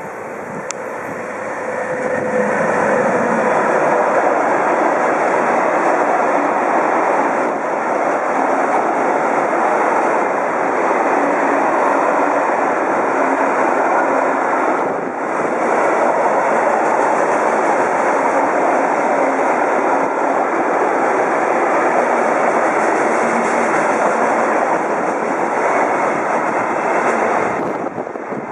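Freight train passing close by: a DB class 185 electric locomotive followed by a long string of flat wagons carrying trailers and containers, their wheels running steadily over the rails. The noise builds over the first couple of seconds, then holds, dipping briefly about halfway through.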